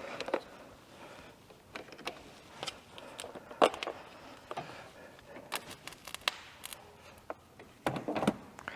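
Scattered light clicks, clacks and knocks of hands handling things, with a sharper knock about three and a half seconds in and a quick cluster near the end.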